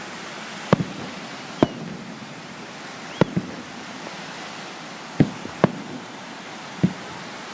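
Fireworks going off: about eight sharp bangs at uneven intervals, some in quick pairs, over a steady hiss.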